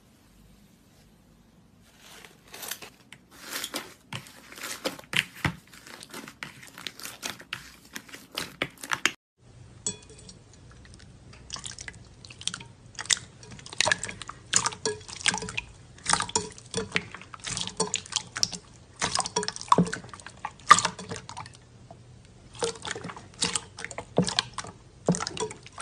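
Slime being squeezed and kneaded by hand: a dense run of wet, sticky clicks, pops and squelches. It starts about two seconds in and breaks off briefly about nine seconds in before going on.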